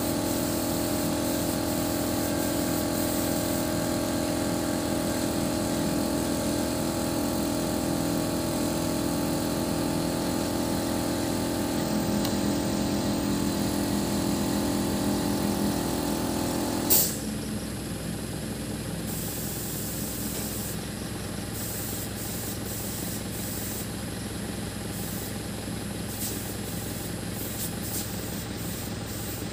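Truck-mounted boom lift's engine running steadily with a hum, working the boom. About halfway through there is a sharp click, and the hum drops to a quieter, steadier idle.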